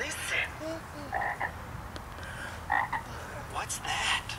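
Frogs croaking: a few short, separate croaks, roughly a second apart.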